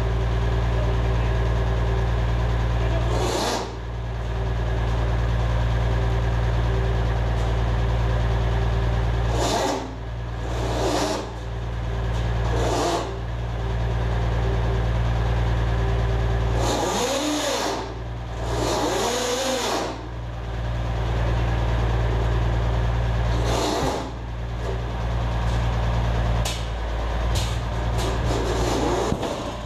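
Truck engine running steadily under load, driving the hydraulics of the truck-mounted crane as it lowers a heavy machine tool. The note breaks several times as the crane controls are worked, with two short rising-and-falling whines about two-thirds of the way through.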